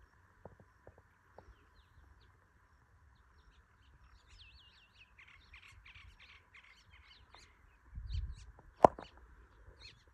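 Wild birds calling: a run of quick chirps and looping whistles from about four seconds in to past seven. Near the end comes a low rumble, then one sharp click, the loudest sound.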